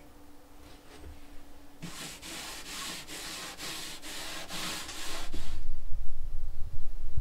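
Rhythmic back-and-forth rubbing strokes on wood, about three a second, for a few seconds. They stop and give way to a louder low rumble.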